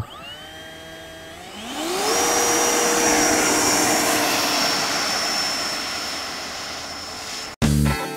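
Twin 90 mm electric ducted fans of a Freewing Eurofighter Typhoon model jet spooling up in two steps to a steady, loud high-pitched whine as the throttle is opened on the runway. The whine cuts off suddenly near the end, where a low thump and music take over.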